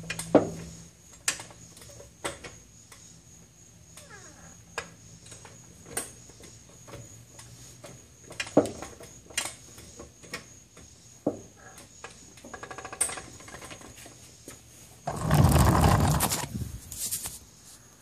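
Honda S2000 rear driveline giving sharp popping clunks as one rear wheel hub is lifted on a jack stand, which the owner puts down to the rear differential. The loud clunks come about half a second, eight and a half seconds and thirteen seconds in, with lighter knocks between them and a quick run of ticks just before the third. Near the end there is a loud rough noise lasting nearly two seconds.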